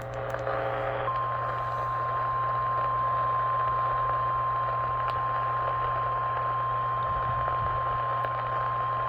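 Weather-radio alert tone: a single steady high tone of about 1 kHz, held unbroken over radio hiss and a low hum. It is the NOAA Weather Radio 1050 Hz warning alarm that heralds a severe thunderstorm warning. Before it comes a brief, lower, buzzy multi-tone sound that stops about a second in.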